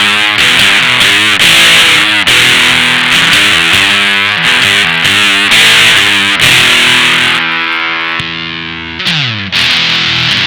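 Electric guitar, a Squier Telecaster, played through a Maestro Fuzz Tone FZ-M fuzz pedal: low-gain fuzz riffing with bent notes. About seven and a half seconds in a held note rings and fades, then slides down in pitch before the riffing starts again.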